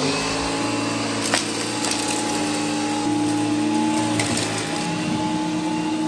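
Gtech AirRam K9 Mk2 cordless upright vacuum running over carpet: a steady motor hum with a higher whine and the rush of the spinning brush bar, with a few sharp ticks and crackles as woody debris is swept up.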